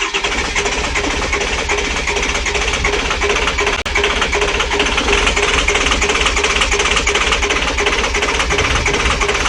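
Cold International diesel engine cranking on its starter without catching: a steady fast chugging with the starter's whine, broken once briefly about four seconds in. It is a hard cold start, cranked before the wait-to-start glow-plug wait was over.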